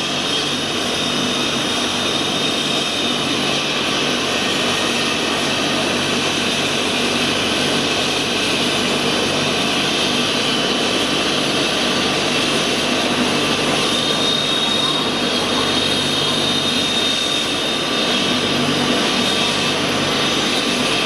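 Twin-turbine AgustaWestland A109 helicopter running on the ground with its rotor turning before takeoff: a steady high turbine whine over continuous rotor and engine noise, growing slightly louder.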